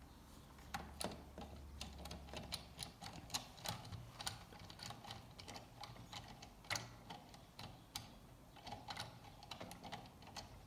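A small screwdriver being turned in a stubborn screw in a plastic Buzz Lightyear action figure: irregular light clicks and taps, several a second.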